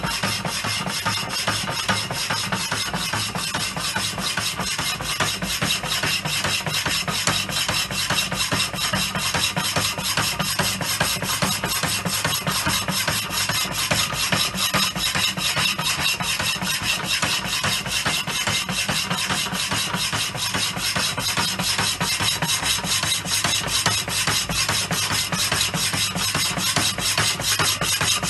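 Manchester Rapidor power hacksaw running, its blade cutting through steel flat bar: a steady, rhythmic rasp of the teeth on each stroke over a low, steady hum.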